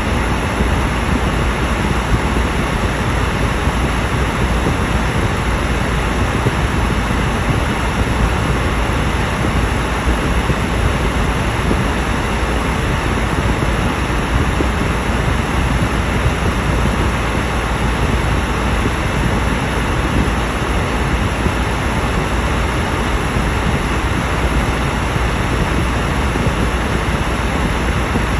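Steady road and wind noise heard inside a car driving along a highway: tyres on the road and air rushing past, an even, unchanging rush that is heaviest in the bass.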